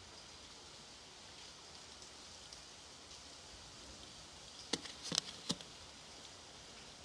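Steady hiss of typhoon rain falling on a wet concrete yard, with three sharp clicks close together about five seconds in.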